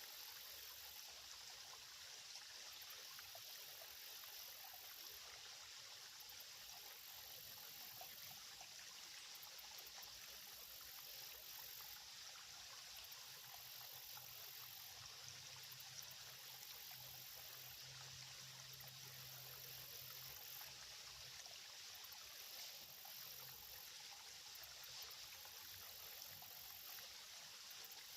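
Faint, steady trickle of a small, shallow creek running.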